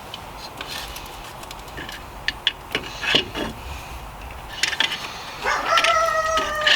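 Plastic clicks and knocks of the new rear hub assembly's wheel-speed sensor connector being worked and pushed into place by hand in a cramped space. Near the end comes a steady high-pitched tone lasting about a second, the loudest sound here.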